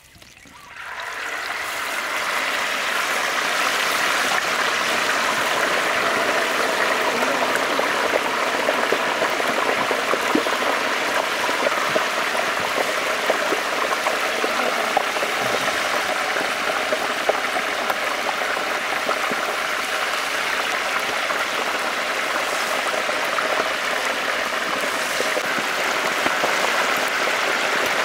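Whole green coconuts frying in hot oil in a large wok: a loud, steady sizzle that starts about a second in as they go into the oil.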